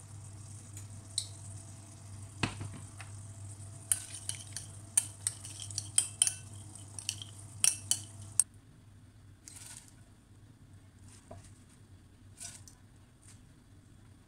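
Spoon stirring fried pumpkin seeds and chopped coriander in olive oil in a ceramic bowl, clinking sharply against the bowl many times, after a single knock a couple of seconds in. The sound cuts off about eight seconds in, leaving a quieter background with a few faint taps.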